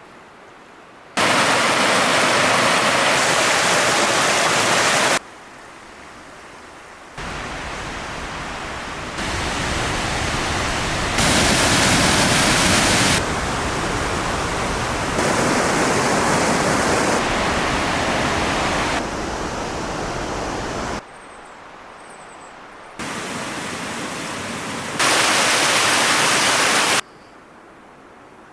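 Sol Duc Falls' cascades: a steady rush of falling water, cut into short takes every two seconds or so that jump abruptly between loud and quieter levels.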